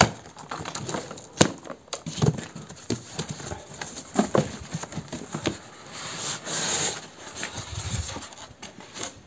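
A cardboard box being unpacked: several sharp snaps and knocks as its plastic packing straps come off, then the cardboard flaps being folded open with a stretch of rustling about six to seven seconds in.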